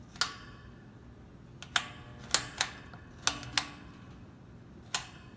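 Rotary speed-switch knob on a 1970s McGraw Edison-built Happy Home 3-speed box fan being turned, clicking through its detents about seven times at an uneven pace. The knob turns freely in either direction past the speed positions.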